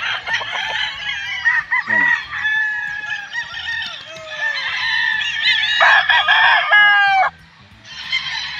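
Many gamecock roosters crowing over one another in a continuous chorus. The crowing breaks off sharply about seven seconds in, then starts up again near the end.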